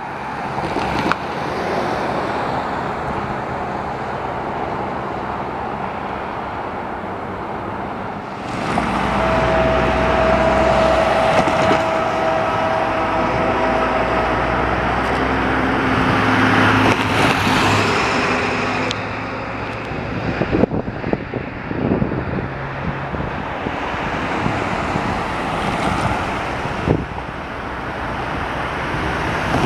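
Diesel locomotives of a CN freight train running as the train approaches, a steady low engine drone with a rumble of traffic-like noise. It gets louder about eight seconds in, and a single steady tone sounds for about six seconds from around nine seconds in.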